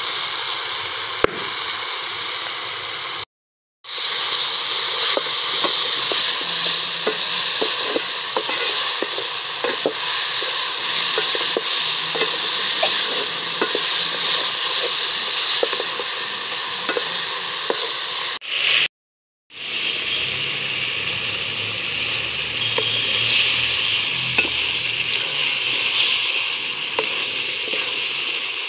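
Chicken pieces sizzling as they fry in spice paste in an aluminium pot, with a wooden spatula scraping and stirring them in a run of short scrapes. The sound cuts out twice briefly.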